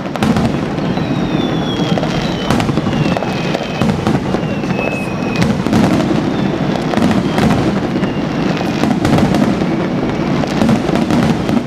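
Aerial fireworks display: a dense, continuous barrage of shell bursts and crackling, with several high thin whistles falling in pitch in the first half.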